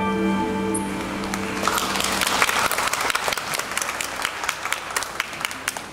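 The backing music's last held chord fades out about two seconds in as an audience breaks into applause. The applause thins toward the end into scattered separate claps.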